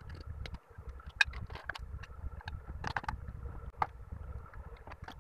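Several sharp clicks and taps as plastic-bodied power transistors (2SC5200 and 2SA1943) are set down and pushed into place on an aluminium heat-sink strip, over a steady low rumble.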